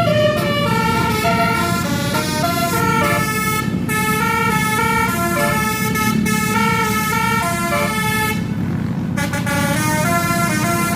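A tour bus's multi-tone telolet (basuri) horn playing a tune of short, stepped notes, several tones sounding together, over a steady low rumble.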